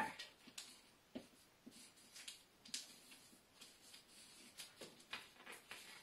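Faint strokes of a felt-tip marker writing on paper: a scatter of short scratches and light taps.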